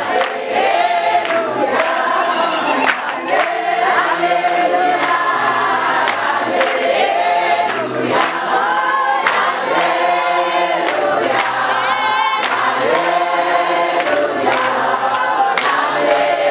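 A congregation singing a gospel song together, with hands clapping steadily on the beat.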